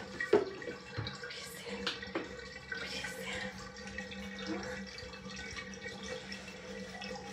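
Bathtub water running out down the drain, with scattered drips and small ticks over a low steady hum. Two sharp knocks come within the first half second.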